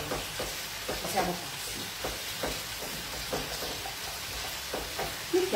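Chopped fresh tomatoes sizzling in an aluminium frying pan as they are stirred with a wooden spoon, which knocks and scrapes lightly against the pan again and again.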